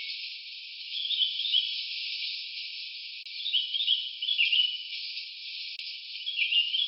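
Forest ambience: a steady high insect hiss, with short chirping calls about a second in, again around four seconds in, and near the end.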